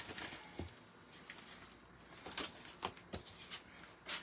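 Patterned paper being handled at a paper trimmer: faint rustling with a few scattered light taps and clicks.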